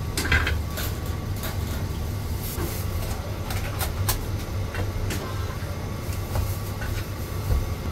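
Heavy Chinese cleaver chopping roast meat on a thick wooden chopping block: a series of short knocks at uneven intervals, over a steady low rumble.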